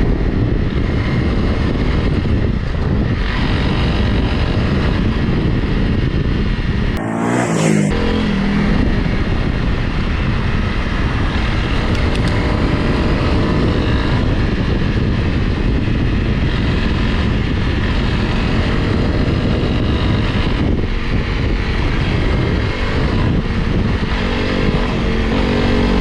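Honda CRF Rally's single-cylinder engine running under load as the motorcycle is ridden over an unpaved track, its pitch rising and falling with the throttle, with rough rumbling noise throughout. About seven seconds in, the low rumble cuts out for about a second.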